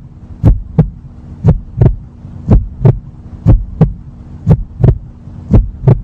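Heartbeat sound effect: paired lub-dub thumps about once a second, over a steady low hum.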